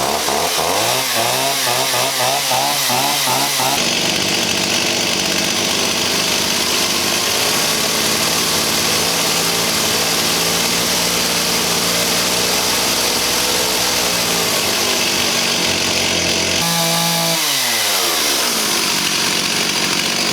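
Stihl 028 AV Super two-stroke chainsaw idling unevenly, then revved to full throttle about four seconds in and held there steadily for around twelve seconds. The throttle is then released and the revs fall back to idle near the end. The saw is running after its low-speed carburetor screw was reset to 1 1/4 turns out and the idle turned up.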